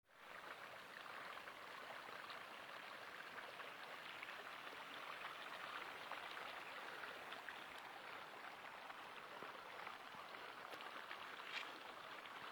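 Mountain river rushing steadily over rocks, fading in at the very start.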